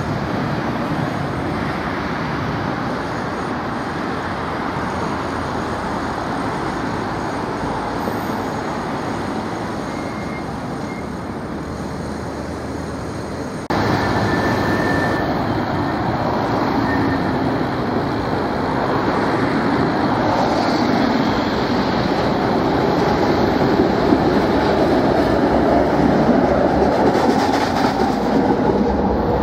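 Street tram running on its tracks amid road traffic, a CAF Urbos 3 low-floor tram rolling along. About halfway through the sound jumps louder, and an older high-floor tram rolls close by, its wheels running steadily on the rails and getting louder toward the end.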